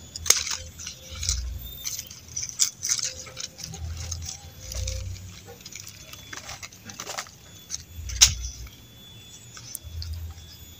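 Hand pruning shears snipping through grapevine canes: a few sharp clicks, the loudest about eight seconds in, with leaves rustling and low handling bumps between them.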